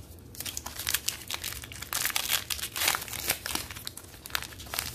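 Plastic wrapper of a WWE Topps Heritage trading card pack crinkling and crackling in quick bursts as it is handled and torn open. The crackling starts about half a second in and is loudest in the middle.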